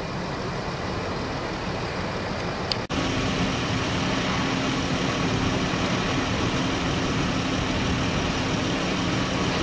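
A motor vehicle engine idling steadily, heard as a continuous rumble with a low hum. The sound breaks off for an instant about three seconds in, then carries on the same.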